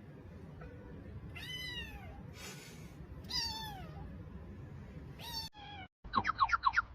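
A cat meowing three times, about two seconds apart, each meow falling in pitch. Near the end, after a brief break, comes a quick run of about six short, high, rising squeaks.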